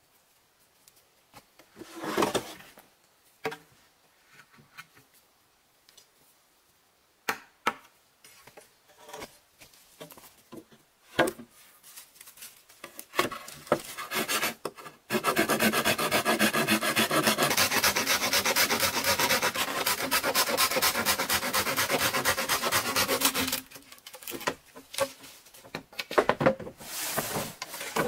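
Hand saw cutting green bamboo. A few scattered knocks and scrapes come first, then about halfway through a steady run of rapid rasping saw strokes lasting about eight seconds, then a few shorter bursts of sawing near the end.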